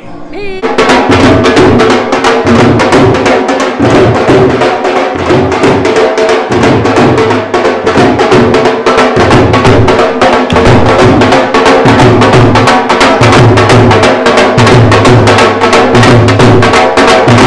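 Loud music driven by a fast, steady drum beat, with held melody tones and a pulsing bass; it starts just under a second in and cuts off abruptly at the end.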